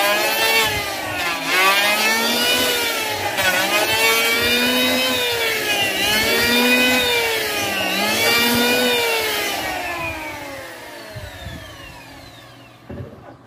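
Hitachi (HiKOKI) electric hand planer cutting a very hard mulawin board in repeated passes, its motor whine rising and falling in pitch about every two seconds. In the last few seconds it winds down, the whine falling in pitch and fading as the cutter spins to a stop.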